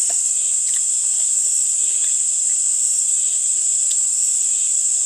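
Steady, high-pitched insect chorus of crickets, an unbroken shrill drone. A few faint light clicks sound over it.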